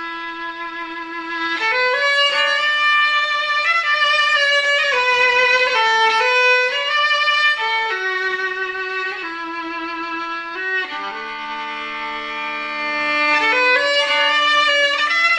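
Solo fiddle playing a slow, expressive tune with long held bowed notes, sounding two strings together for a stretch a little past the middle.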